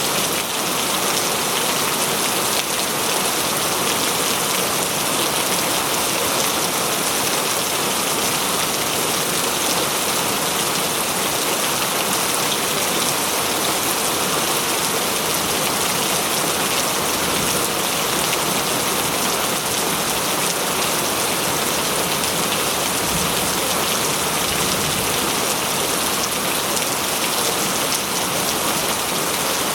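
Steady, heavy rain falling on leaves and the ground in a forest, an even dense patter with no letup.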